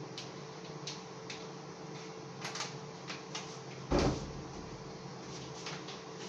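Kitchen handling sounds: a few light clicks and taps of containers and utensils being moved, with one louder knock about four seconds in.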